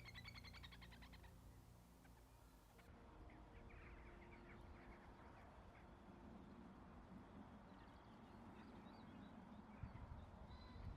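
Faint animal calls over a quiet background, after a short stretch of music that ends about three seconds in.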